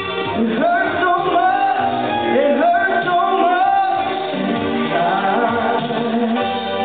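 A man singing karaoke into a microphone over a recorded backing track. One sung phrase runs from about half a second in to about four and a half seconds, and the backing music carries on alone after it.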